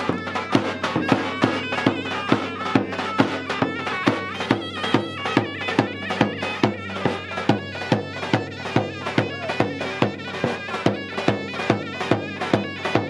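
Traditional Turkish folk dance music: a drum beating a steady, driving rhythm under a reedy, bagpipe-like wind melody over a held drone.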